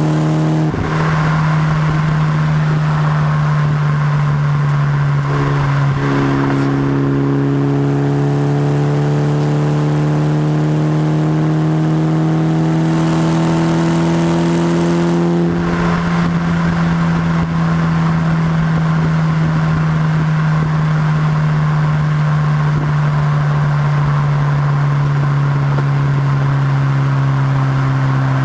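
Mitsubishi Lancer Evolution X's turbocharged four-cylinder engine, breathing through an aftermarket titanium exhaust, pulling through the gears. Its pitch climbs steadily and drops at upshifts about a second in, about six seconds in and about fifteen seconds in, then settles into a steady, slowly falling drone.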